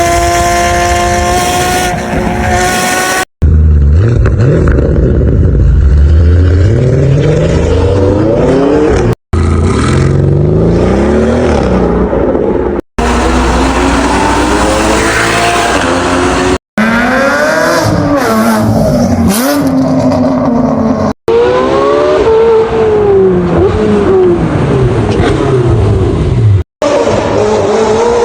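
A series of short clips of Porsche sports-car engines accelerating and revving hard. In each, the engine pitch climbs and drops back again and again as it shifts through the gears, and some clips sound like a car passing. The sound cuts off abruptly between clips about every four to six seconds.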